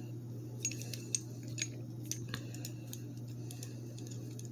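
Light metallic clicks and ticks as a steel puller jaw, its bolt and nut are handled and the nut is threaded on by hand: a few scattered sharp ticks, mostly in the first half, over a steady low hum.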